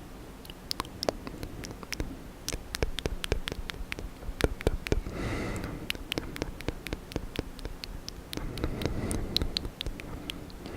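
Wet ASMR mouth sounds of ear licking: rapid, irregular tongue and lip clicks and smacks, with two longer, softer wet sounds about halfway through and near the end.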